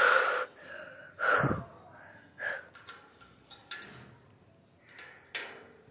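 A boy's breaths and gasps close to the phone's microphone, in a few short bursts, the loudest at the start and about a second and a half in, with a few sharp handling clicks between.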